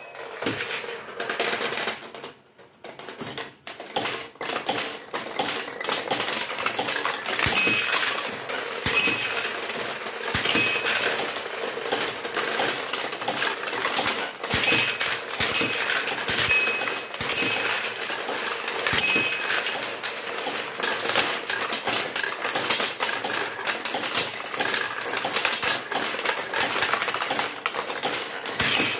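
Vintage pachinko machine's rear mechanism running: steel balls clattering and rattling through its ball tray and routing parts in a dense, continuous stream of clicks. The clatter is sparse for the first few seconds and then runs on steadily, with short ringing pings now and then.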